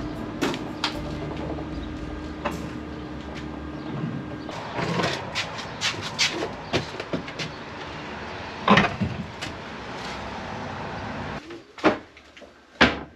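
Knocks, bumps and scrapes of a chipboard kitchen cabinet unit being carried into a van and set in place, with one loud knock about two-thirds of the way through and two more sharp knocks near the end. A steady hum runs under the first few seconds.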